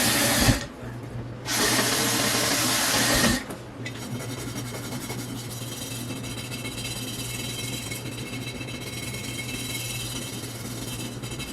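Electric power tool running in two spells, briefly cut off about half a second in and starting again, then stopping at about three and a half seconds. After that, a quieter steady hum continues.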